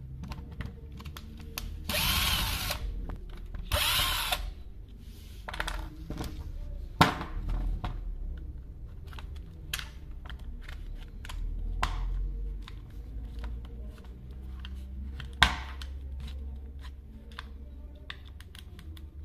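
Cordless drill-driver running in two short bursts, about two seconds apart, backing out the housing screws of a hammer drill. Then a few scattered sharp clicks and knocks as the screws and the plastic housing are handled on the workbench.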